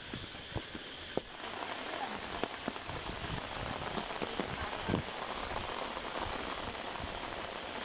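Steady rain falling, growing louder about a second and a half in, with many single drops ticking sharply close by.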